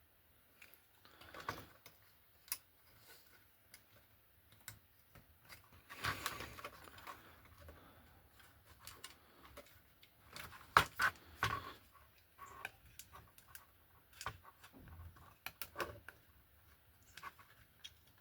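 Small model-kit parts handled at close range: scattered light clicks and short scrapes as a wagon door is worked onto its hinge pin, with one sharper click about eleven seconds in.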